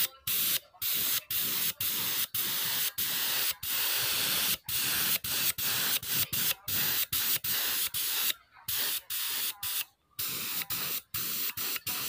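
Gravity-feed compressed-air spray gun hissing in short bursts, about two a second, as the trigger is pulled and released while spraying finish onto a wooden chair. There are slightly longer breaks about eight and a half seconds in and at ten seconds.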